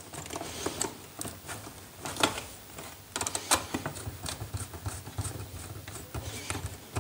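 Scattered small clicks and scrapes as wires are handled on a plastic switch board, and a screwdriver works on a brass terminal screw to fasten a wire.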